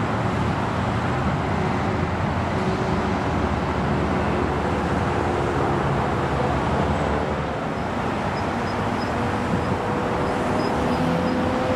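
Steady roar of airport ground noise and road traffic, with a jet engine whine growing in during the second half as an arriving jet approaches.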